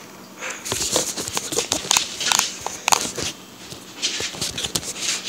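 Handling noise from a handheld camera: fingers rubbing and tapping on it close to its microphone, making an irregular run of clicks and rustles that starts about half a second in.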